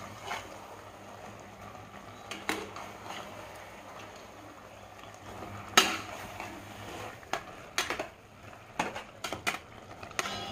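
Metal ladle stirring chicken and thick masala paste in an aluminium pressure cooker, knocking and scraping against the pot in irregular clinks. The loudest knock comes about six seconds in, and a quick run of clinks follows near the end, over a faint steady hum.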